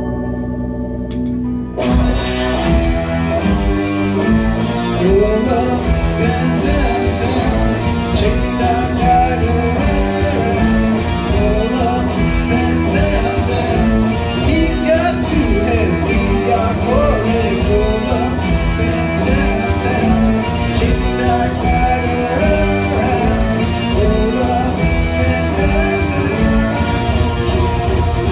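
Live dream-pop song on electric guitar. Sparse chords open it, then about two seconds in a full arrangement with a steady drum beat and heavy bass comes in and carries on.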